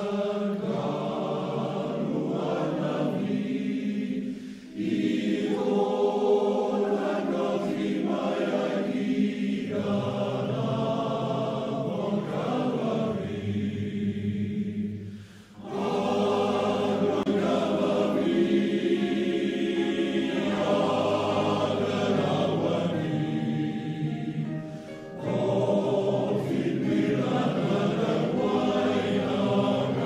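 Male voice choir singing a slow piece in long, held phrases, with brief breaks between phrases about 5, 15 and 25 seconds in.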